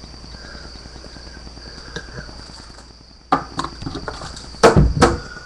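Faint room hiss with a steady high-pitched whine, then a quick run of sharp knocks and thumps starting about three seconds in, the loudest near the end.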